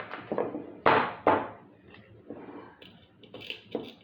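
Sharp knocks and clunks from handling a block of ice with a plastic toy dinosaur frozen inside. The two loudest knocks come close together about a second in, with lighter ones near the start and near the end.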